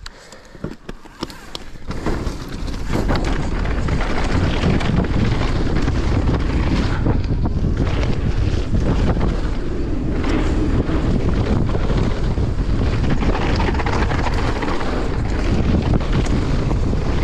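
Wind buffeting the microphone, coming in about two seconds in and staying loud and steady, with a few clicks before it.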